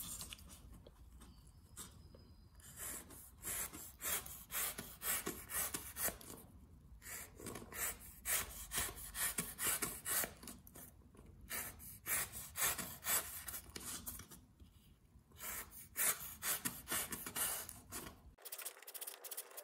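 Rough Ryder pocket knife with a 440 steel blade slicing a strip of corrugated cardboard into fringes. It makes a run of short cuts about two a second, in four bursts with brief pauses between them. The blade goes through the cardboard cleanly, showing its factory edge is sharp.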